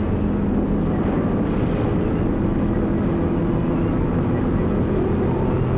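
Steady low mechanical rumble and hum of locomotive repair shop machinery.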